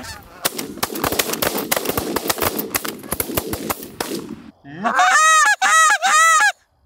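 Rapid run of sharp cracks, shotgun fire, over the first four seconds. Then a hand-blown Canada goose call gives four quick, loud honks, each rising and falling in pitch.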